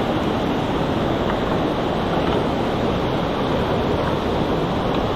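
Waterfall rushing: a loud, steady roar of falling water with no change in level.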